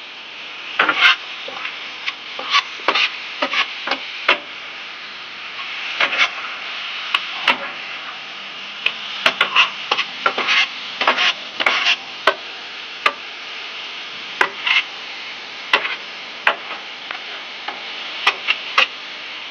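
Food sizzling steadily on a flat-top grill, with a spatula repeatedly scraping and tapping against the metal cooking surface at irregular moments.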